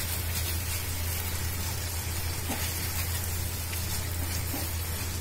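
Onion and sauce mixture sizzling steadily in a non-stick frying pan as a silicone spatula stirs it, with a couple of soft knocks from the spatula, over a steady low hum.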